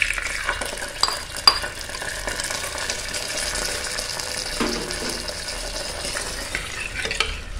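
Hot ghee with fried cashews poured into the hot sago payasam, sizzling steadily, with two sharp taps about a second in. Near the end a steel ladle goes in to stir the payasam in the pressure cooker.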